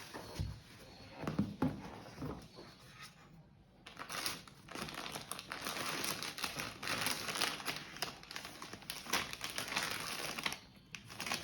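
Packaging crinkling and rustling as a parcel is unpacked by hand. There are a few soft knocks in the first two seconds, then dense, continuous crinkling from about four seconds in.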